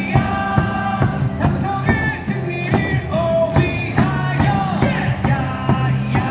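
Upbeat cheering music with singing and a steady beat, played over a baseball stadium's loudspeakers.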